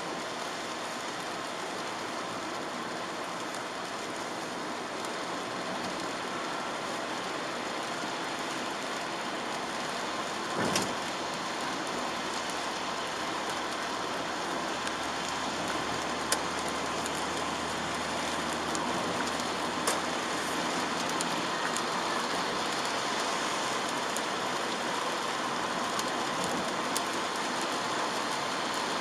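Steady hiss of rain and wet road noise heard inside a moving Chevrolet Aveo 1.4 petrol car. A single thump comes about a third of the way in, after which a low engine hum runs for about ten seconds; a few sharp ticks fall later on.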